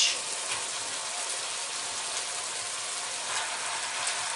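Red-wine sauce and vegetables sizzling steadily in a pot of beef braise as browned beef roasts are set into it.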